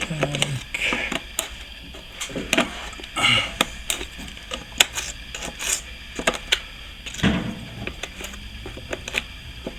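Plastering trowel working wet plaster onto a wall patch: irregular short scrapes and clicks, several a second at times, as a first coat is spread and smoothed.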